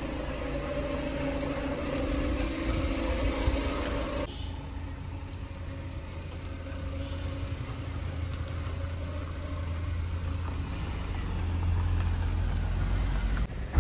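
Passenger van's engine running steadily. About four seconds in, the sound changes abruptly to a deeper, lower rumble that grows louder near the end.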